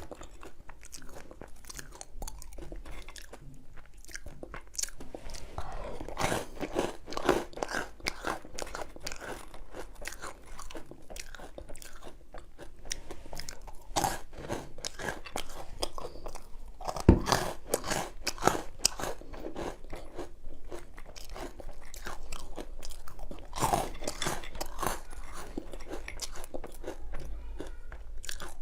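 Close-miked eating: crunchy food being bitten and chewed, a steady run of crackling crunches with one sharp loud crack about seventeen seconds in.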